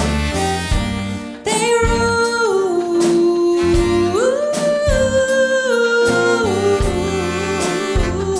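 Live chamber-pop ensemble playing a song, with low bass notes pulsing underneath. About a second and a half in, a melody of long held notes enters on top. It steps down, leaps up near the middle, then steps back down.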